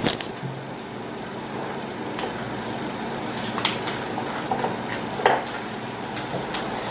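Small paper sachets of sprinkles being handled, giving a few short crinkles and clicks, the sharpest about five seconds in, over a steady room hum.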